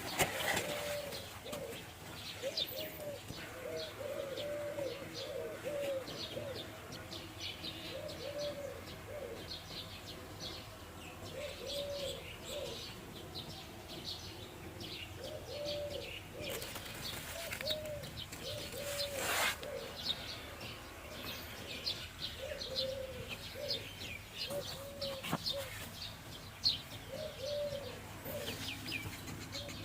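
Doves cooing in short repeated phrases, with smaller birds chirping rapidly at a much higher pitch throughout, and a few sharp clicks.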